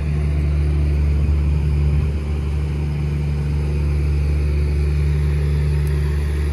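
A steady, loud low mechanical drone.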